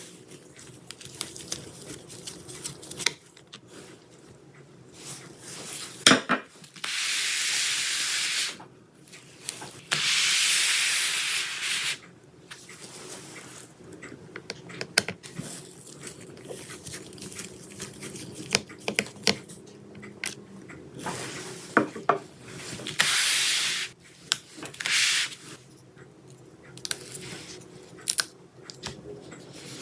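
Short blasts of a compressed-air duster hissing into the laptop's open chassis, about four in all, with small clicks and rubbing of handling in between.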